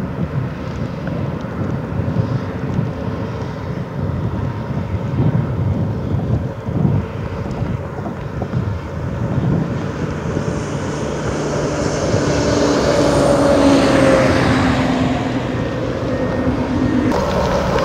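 Heavy diesel quarry machinery running: a steady low engine rumble, with a louder engine building up in the second half, its tone falling slightly in pitch. Near the end the sound changes abruptly to a different engine sound.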